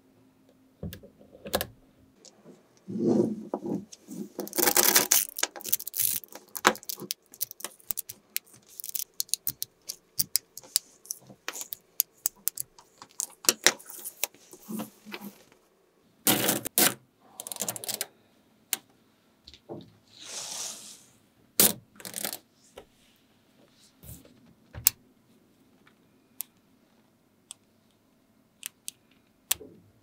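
Small magnetic balls clicking and snapping together one after another, with a few denser bursts of rattling clicks; the clicks thin out to a few single snaps near the end.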